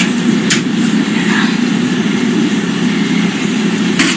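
A steady low machine hum, with two short knife cuts through tofu on a cutting board, one about half a second in and one near the end.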